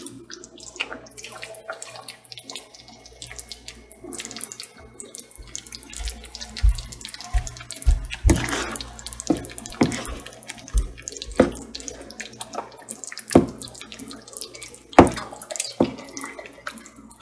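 Raw chicken strips being dropped piece by piece into a pan of cream-of-mushroom sauce, making wet splats and knocks about once a second from about six seconds in. Under them runs a steady watery hiss from the sauce cooking.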